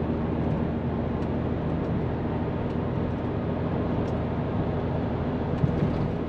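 Hino truck's diesel engine running steadily with tyre and road noise, heard inside the cab at expressway cruising speed, with a short knock near the end.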